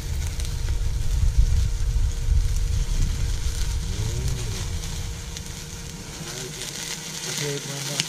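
Wood fire burning in a metal fire pit, crackling and hissing steadily. A low rumble under it fades about halfway through.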